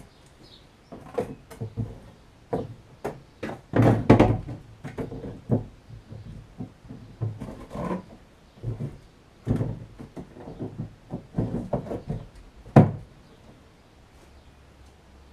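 Irregular knocks and thunks of hands-on work, handling and setting down hard pieces, with the loudest strikes about four seconds in and again near the end.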